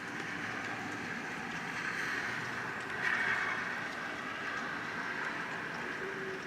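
Heavy rain and gusting wind: a steady hiss that swells twice, most strongly about three seconds in.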